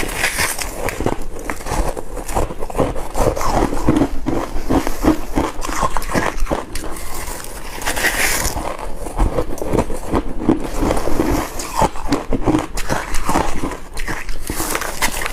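A person biting into crushed and shaved ice, a dense, irregular run of crisp crunches.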